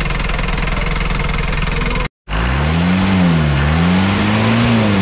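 Rebuilt Isuzu truck diesel engine idling with a fast, even clatter. After a brief break about two seconds in, it is revved up and let fall back twice.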